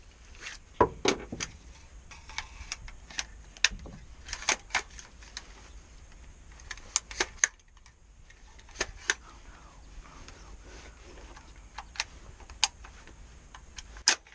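Scattered sharp clicks and light rustling of equipment being handled, with a dull knock about a second in.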